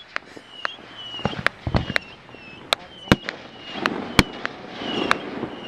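Fireworks going off: a quick run of sharp pops and bangs, with the two loudest reports about three and four seconds in.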